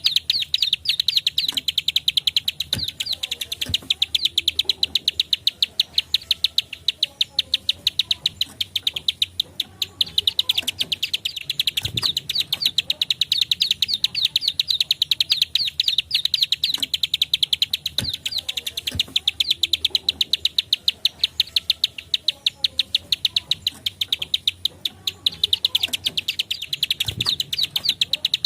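Plain prinia (ciblek sawah, prenjak klik) giving its rapid 'klik' call: a fast, steady run of sharp, high clicks that barely pauses. A few soft knocks sound underneath.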